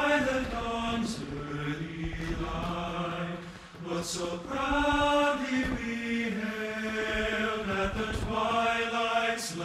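A choir singing long held chords with a band behind it, the sung lines swelling and changing pitch slowly. There are a few brief sharp hits now and then.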